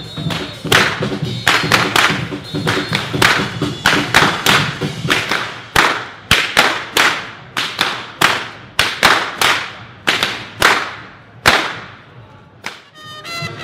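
Two whip crackers cracking long whips: a fast, irregular run of sharp, loud cracks, two to three a second, that stops near the end as faint brass band music begins.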